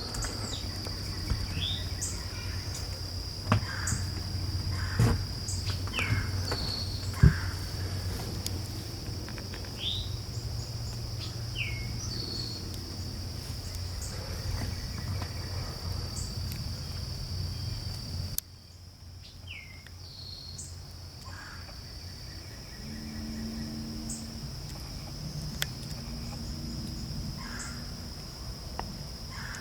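Insects droning steadily at a high pitch, with a bird giving short falling chirps every few seconds. A few sharp knocks sound in the first eight seconds, and a low rumble under it all drops away about eighteen seconds in.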